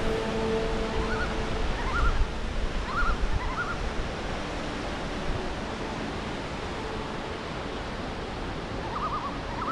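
Whitewater rapids rushing over boulders in a mountain river: a steady, even rush of water.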